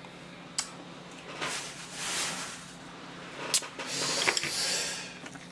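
Close-miked eating and handling noises: a few sharp clicks and several short rustling swells.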